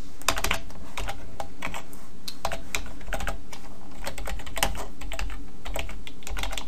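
Typing on a computer keyboard: irregular runs of keystroke clicks, over a steady low hum.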